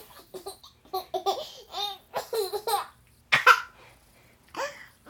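A toddler laughing in short bursts. The loudest burst comes about three and a half seconds in, and a smaller one follows near the end.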